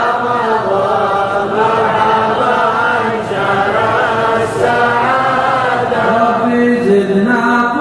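Men's voices chanting a devotional Arabic poem (qasida) together, unaccompanied, in a slow melody of long, drawn-out notes.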